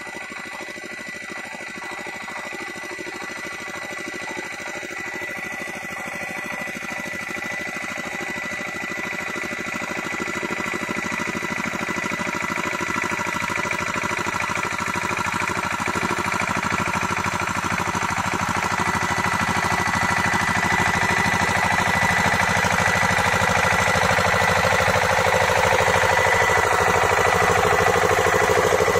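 Kamco power tiller's single-cylinder diesel engine running under load as it drags a leveling board through a flooded paddy field, growing steadily louder as it comes up close.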